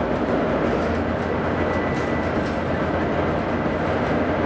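Volvo B9TL double-decker bus cruising at a steady speed, heard from inside the lower deck: the drone of its rear-mounted six-cylinder diesel engine mixed with road and tyre noise. A faint thin whine sounds for a couple of seconds in the middle.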